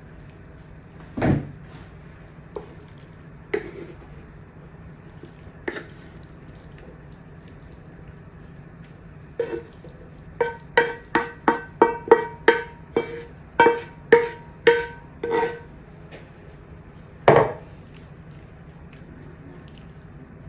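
Wooden spatula scraping lamb mince out of a frying pan into a glass oven dish. A few single knocks come first, then about halfway through a quick run of about fifteen ringing taps against the pan and dish, two or three a second, and one last loud knock near the end.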